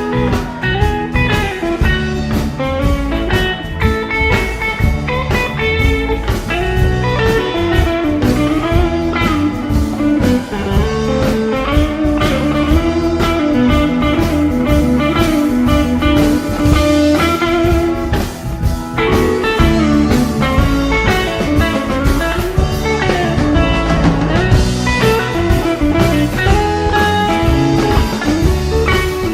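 Live band playing an instrumental passage, a guitar carrying a bending melodic line over bass.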